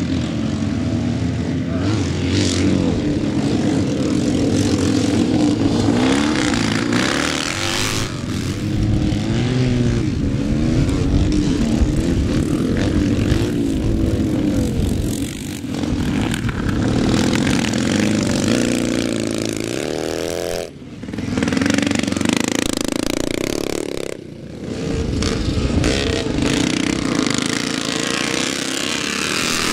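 Pre-1965 scrambles motorcycles racing on a grass track, several engines at once revving up and easing off as the riders accelerate and brake through the corners. The sound cuts off and restarts abruptly a few times.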